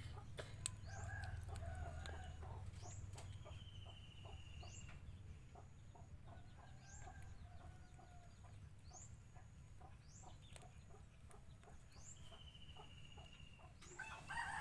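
A cat chewing and crunching a chicken thigh bone in faint rapid ticks. Chickens cluck in the background, and a bird repeats a short rising chirp about every two seconds.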